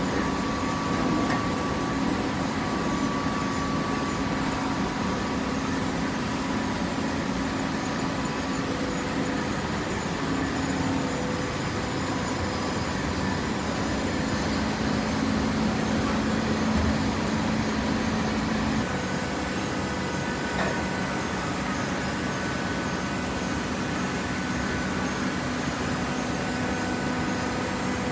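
Hydraulic cardboard baler's pump motor running steadily: an even machine hum whose tones shift about two-thirds of the way through.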